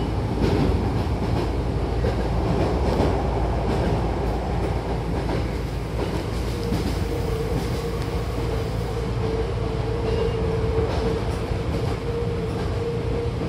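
Hankyu Kobe Line electric train running, heard from inside the car by its closed doors: a steady rumble of wheels on track with some clickety-clack. A steady hum joins in about six seconds in and fades out near the end.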